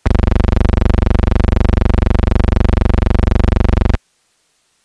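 Loud, steady, low buzzing tone that starts abruptly and cuts off suddenly after about four seconds.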